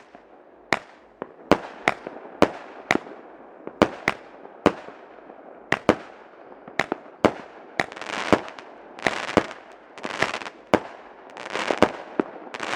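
New Year fireworks going off: a rapid string of sharp bangs, about two a second, with several longer, noisier bursts in the second half.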